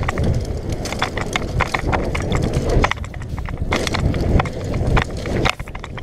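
Mountain bike rolling over a rough dirt trail: irregular rattling knocks, several a second, from the bike's chain and frame over a low rumble of tyres and wind.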